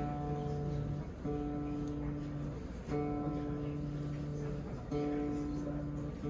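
A guitar strummed four times on the same chord, each chord left to ring until the next, about every one and a half to two seconds.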